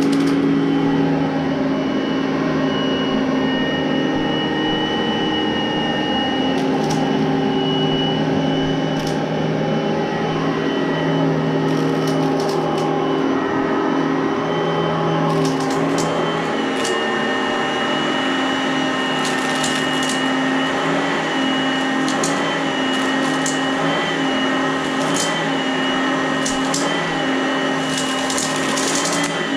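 Oreck upright vacuum cleaner running steadily with a whine, with scattered clicks and crackles as crunchy debris is sucked up off a rug.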